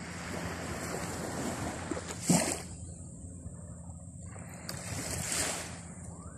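Small waves lapping on a sandy shore, with wind rushing across the microphone. The rush swells briefly and sharply about two seconds in, then again more broadly near the end.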